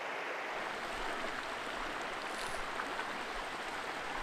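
Small mountain stream flowing: a steady rush of running water.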